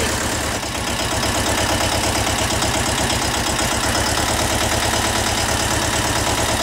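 Mahindra Jivo 245 DI tractor's two-cylinder diesel engine idling steadily with an even low pulse.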